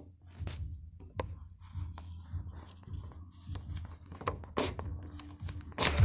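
Muffled low bass of loud amplified music from a neighbouring house, overlaid by the knocks and scrapes of a phone being handled against a window frame. The music gets much louder near the end.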